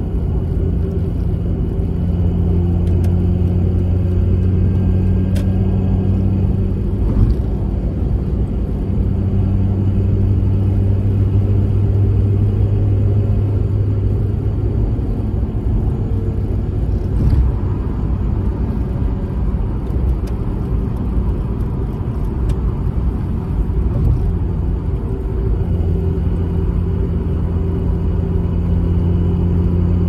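Mazda RX-8's twin-rotor rotary engine and road noise droning steadily inside the cabin while driving. The engine's low hum drops away twice, about seven seconds in and again about seventeen seconds in, each time with a light knock, and comes back near the end.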